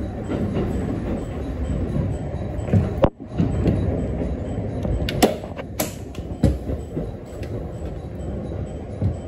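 ET127 series electric train running, heard from inside the passenger car: a steady low rumble of wheels on rail and running gear. About halfway through come a few sharp clicks, and the sound cuts out for an instant about three seconds in.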